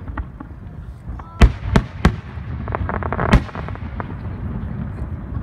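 Aerial firework shells bursting: four sharp bangs between about a second and a half and three and a half seconds in, the first the loudest, with a short spell of crackling just before the last.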